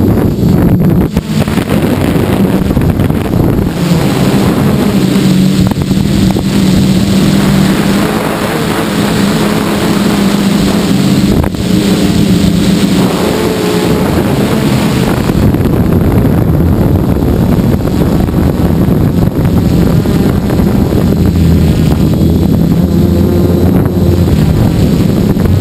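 Gaui 330X-S quadcopter's electric motors and propellers buzzing, picked up by a GoPro mounted on the craft, their pitch stepping up and down as the throttle changes. Wind rushes over the microphone throughout.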